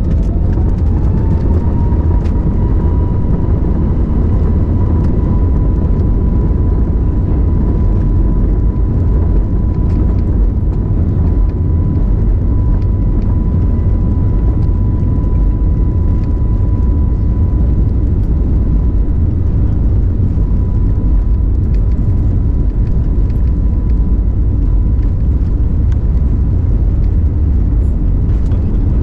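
Airbus A321neo turbofan engines spooling up to take-off thrust, heard from inside the cabin. A whine rises in pitch over the first couple of seconds, then holds at one steady high tone over a loud, even rumble of engines and wheels rolling down the runway.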